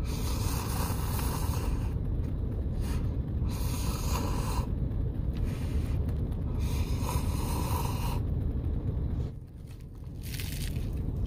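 A person slurping hot instant noodles from a cup in three long, noisy slurps, over a steady low rumble.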